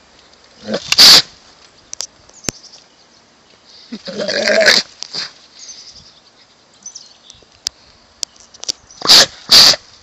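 A goat giving harsh, raspy bleats: a short one about a second in, a longer one about four seconds in, and two quick ones near the end.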